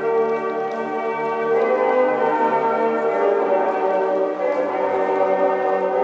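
Ceremonial music with sustained, bell-like chords that change slowly, accompanying the entry of the Olympic flag.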